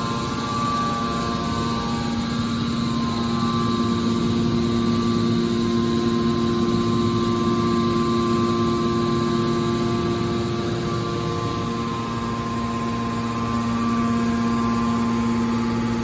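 Hydraulic metal baler's power unit, an electric motor driving the hydraulic pump, running with a steady mechanical hum; its tones weaken in the middle and strengthen again about three-quarters of the way through.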